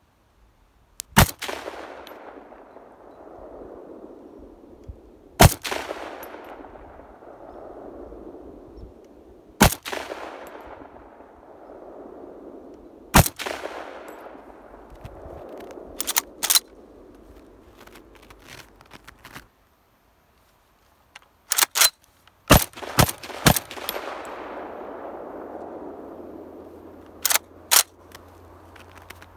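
Gewehr 43 semi-automatic rifle in 7.92×57mm Mauser firing: four single shots about four seconds apart, each followed by a long echo that rolls back and fades, then a rapid string of about five shots. A few smaller sharp metallic clicks come between the shots.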